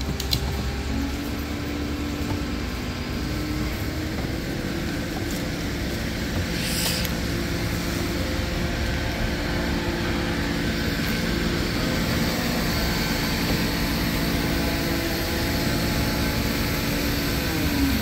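Heavy crane engine running under load while hoisting a boat, with a steady low rumble; its pitch climbs about a second in and drops back near the end.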